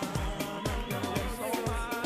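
Upbeat dance-pop music from a stage song-and-dance number, with a steady kick-drum beat of about two beats a second.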